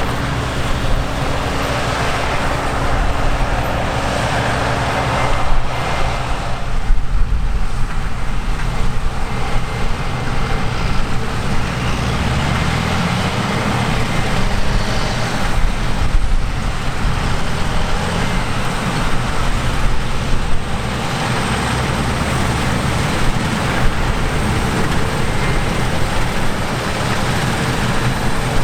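Heavy diesel harvest machinery, combine harvesters and tractors, running steadily at work in the field, with the engine note rising briefly partway through.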